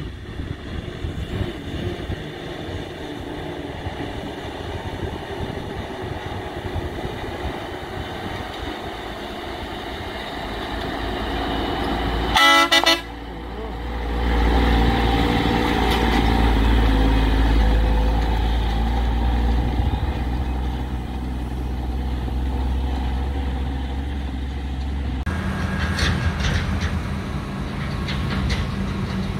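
A heavy sugarcane truck approaching, with its engine noise building, then a short loud horn blast about twelve seconds in. Heavy low engine rumble follows as the loaded truck passes close by. The rumble eases off, and near the end another truck is heard approaching.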